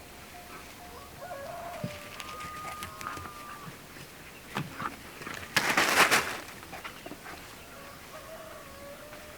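Roosters crowing in long, drawn-out calls, with a loud noisy burst of under a second about six seconds in.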